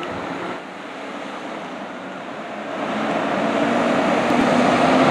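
Diesel engine of a 2000 Spartan Gladiator fire engine running as the truck pulls out of the station bay, growing steadily louder from about halfway through as it approaches.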